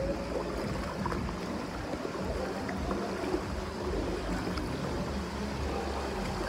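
Steady rush and slosh of water flowing along a water-park lazy river, with people wading through the current.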